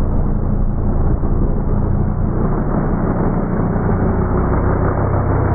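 Lamborghini Huracán's V10 engine running steadily at low revs as the car rolls slowly by.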